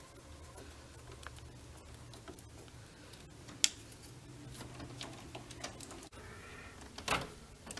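Faint small clicks and scrapes of a screwdriver turning the terminal screws of a plastic double-pole circuit breaker, clamping 6-gauge copper wire in its lugs. One sharp click comes a little over three and a half seconds in, and louder clacks come near the end as the breaker is handled.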